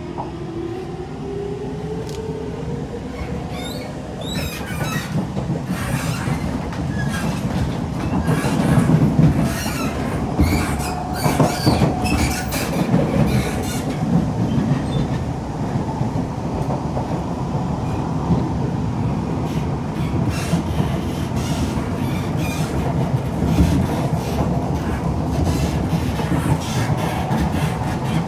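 Siemens C651 metro train heard from inside the car as it accelerates away: the traction motors' whine rises in pitch over the first couple of seconds, then the train runs on at speed with a steady rumble of wheel noise and many sharp clicks from the wheels over the track.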